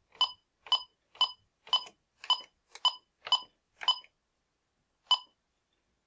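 Bosch B-Series intrusion-panel keypad beeping once for each key press. There are eight short beeps of the same pitch, about half a second apart, as digits are keyed in, then one more beep about a second later.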